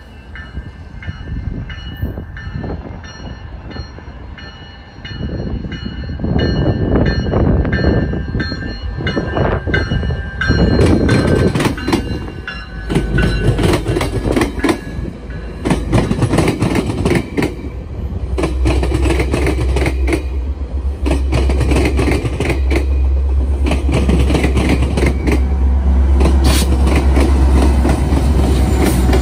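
GO Transit bilevel commuter train passing close by, its horn sounding as the cab car approaches and its wheels clacking over the rail joints. A diesel locomotive pushing at the rear brings a loud, steady, deep engine rumble in the last several seconds.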